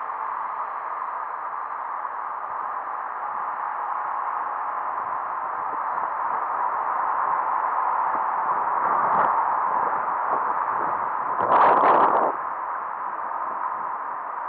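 Electric RC airboat's motor and air propeller running with a steady whine, with a brief louder surge near the end.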